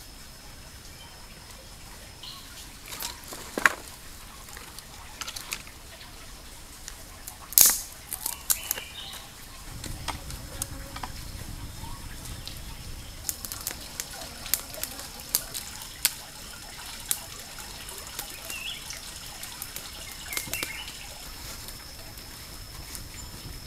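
Small campfire of dry leaves and twigs catching and crackling, with sharp snaps scattered throughout, the loudest about seven and a half seconds in. A faint steady high whine runs in the background.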